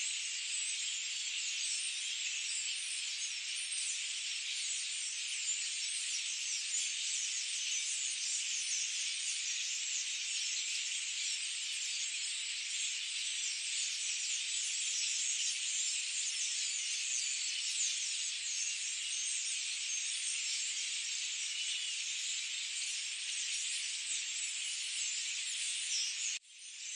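Dense, steady high-pitched chorus of chirping in a forest, with no low sounds beneath it; it cuts out for a moment near the end.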